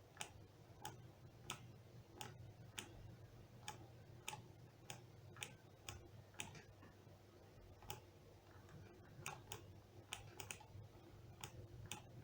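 Faint sharp clicks, about two a second, over a steady low hum.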